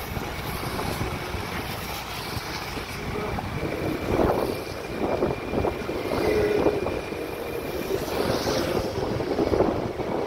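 Wind buffeting the microphone of a moving scooter, with the scooter's engine running underneath. The rush swells louder a few times.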